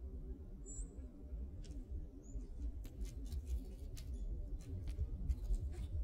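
Black squirrel cracking and chewing seeds: a run of quick, sharp clicks through the second half, over a low rumble. A small bird gives a short high chirp about a second in and another a little after two seconds.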